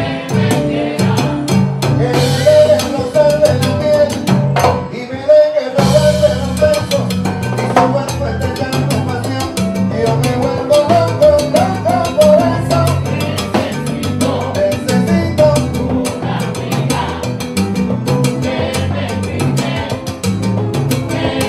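Live Cuban salsa (timba) band playing, with lead and backing vocals over dense percussion and bass. The bass drops out briefly about five seconds in, then the full band comes back.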